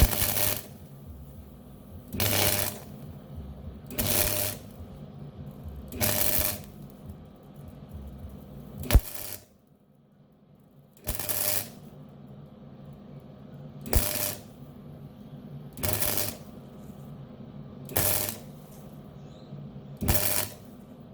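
MIG welder arc crackling in short bursts of about half a second, roughly every two seconds, about ten in all: pulsed welds filling a hole blown through thin steel.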